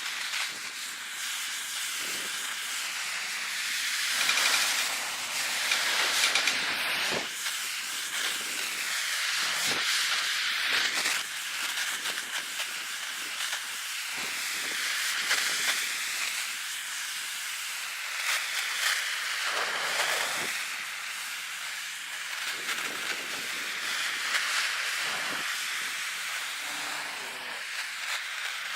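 Gas torch flame hissing steadily as it scorches the surface of a wood slab for a burnt-wood finish, the hiss swelling and fading in slow sweeps as the torch moves back and forth.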